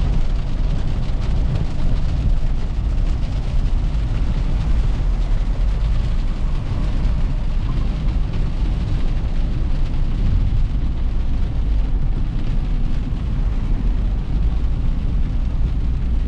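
Steady low rumble and hiss of a vehicle driving in heavy rain.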